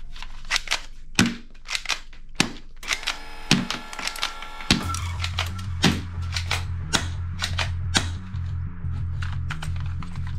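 Plastic toy guns clacking and knocking against each other as they are handled and put down in a box, with irregular sharp clicks and a few heavier knocks. Background music plays underneath, with a low bass part that comes in about halfway through.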